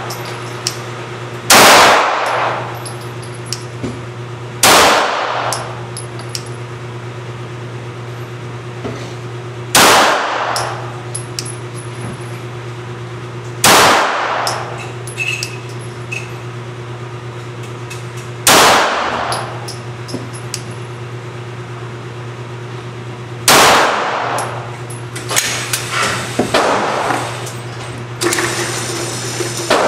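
Six single shots from a Glock 17 Gen 4 9mm pistol, fired slowly a few seconds apart, each with a short echoing tail, over a steady low hum. A few lighter metallic clicks follow near the end.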